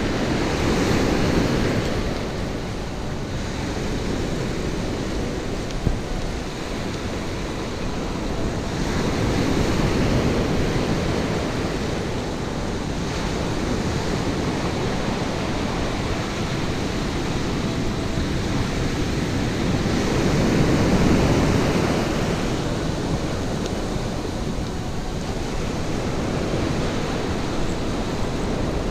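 Ocean surf washing and breaking around the feet, with waves swelling up and falling back about every ten seconds, and wind buffeting the microphone.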